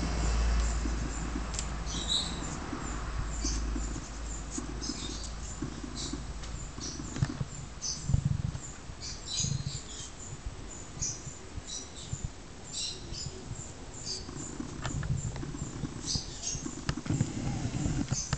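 A dog pushing loose garden soil with its nose and paws to cover a buried bone: irregular scuffing and soft thumps in the dirt, busiest about halfway through. Short high chirps come and go throughout.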